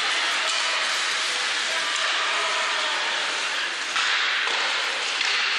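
Ice hockey rink ambience: a steady hiss of skate blades on the ice with faint clicks of sticks and puck, echoing in the arena.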